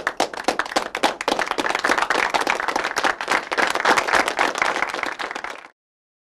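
A group of people clapping: the claps thicken into dense, steady applause and then stop abruptly near the end.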